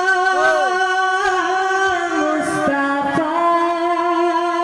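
A singer holding one long note with slight vibrato in an Urdu devotional song (naat), drawing out the word "Mustafa".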